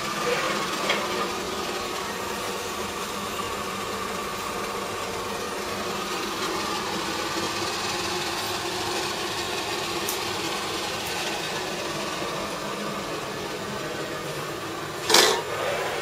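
Steady hiss and hum of hot-glass studio equipment running, such as a furnace or glory-hole burner and blower. A short, loud hiss bursts out about a second before the end, as smoke rises from the glowing glass on the blowpipe.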